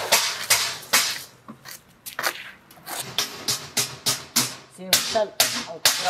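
Steel scraper blade knocking and scraping against a steel mold's edges while wet foam concrete is struck off and smoothed: a string of sharp, irregular clicks and knocks, roughly two a second.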